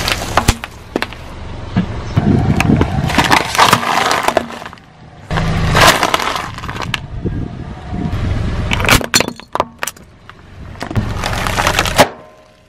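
Car tyre rolling slowly over brittle plastic objects on asphalt and crushing them, in several separate bursts of crunching and cracking with sharp snaps.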